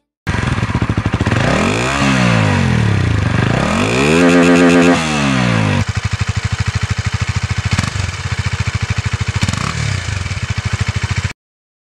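Honda CBR250R's single-cylinder engine under hard acceleration, its pitch climbing and dropping a few times. About halfway through it settles into a steadier, lower note with a regular pulsing, then cuts off suddenly near the end.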